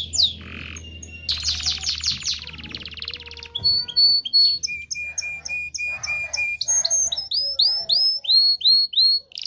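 Domestic canary singing a varied song: a fast trill about a second in, then runs of repeated whistled notes, ending in a series of down-slurred notes.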